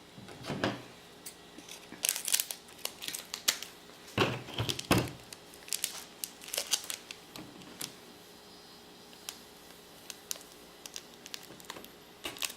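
Hands handling a small plastic glitter nail-art kit: scattered clicks, taps and rustles, with louder clusters of knocks about half a second in and again around four to five seconds in, and a quieter stretch before the clicks pick up near the end.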